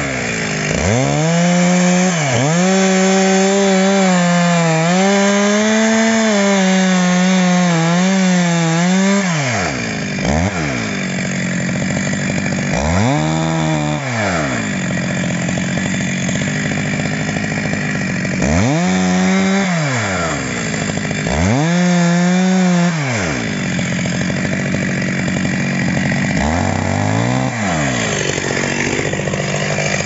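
Two-stroke chainsaw cutting into the base of a dead standing tree. The engine holds a steady pitch under load for the first nine seconds or so. After that the throttle is let off and opened again several times, the engine speed dropping and climbing back each time as the cut goes on.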